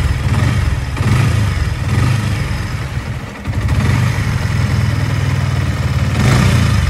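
Yamaha R15 V3's single-cylinder engine running with a rapid pulsing beat, with a brief drop in level about halfway through. This is the piston noise of an engine whose oil pump had stopped turning, which left the piston and cylinder wall scored and seized.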